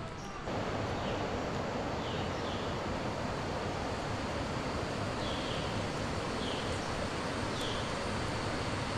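Steady rush of falling water from a waterfall, starting abruptly about half a second in. A few faint, short, high chirps sound above it.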